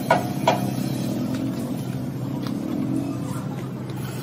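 A metal blade strikes a lead-acid battery plate pack twice near the start, two sharp knocks. Behind them and after them a steady low engine drone keeps running.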